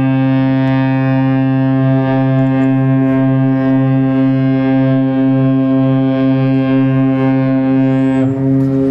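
A cruise ship's horn sounding one long, steady, low blast, the departure signal of the AIDAperla leaving port. The blast wavers briefly about eight seconds in.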